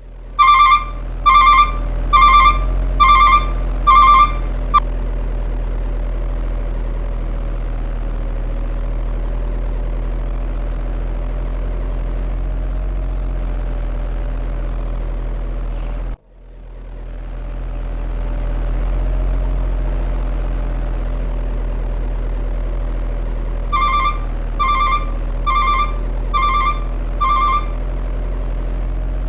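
Steady low engine-like drone from a radio-controlled construction machine, with a run of five evenly spaced electronic beeps near the start and again near the end. The drone cuts out suddenly about halfway through and swells back up over a few seconds.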